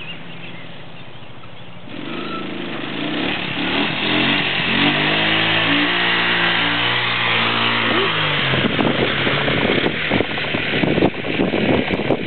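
Arctic Cat 300 ATV engine idling, then revving up about two seconds in, its pitch rising over a few seconds and holding high under throttle. From about eight seconds in it runs rough and noisy with scattered knocks and rattles as the four-wheeler is ridden.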